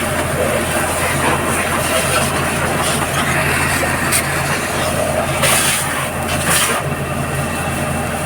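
Fire tender's engine and water pump running steadily, with a few short bursts of hiss near the middle.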